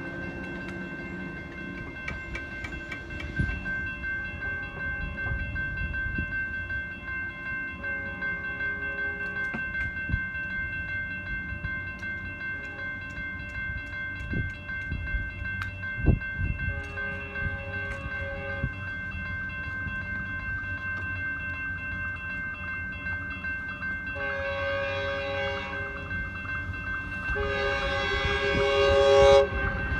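Grade-crossing warning bell ringing steadily while an approaching Metrolink commuter train sounds its horn four times, each blast a multi-note chord, louder as the train nears, with the last two close together near the end.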